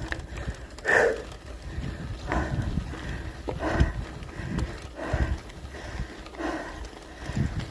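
A tired cyclist breathing hard while pedalling, a heavy exhale about every second and a half, over a steady low rumble of wind on the microphone.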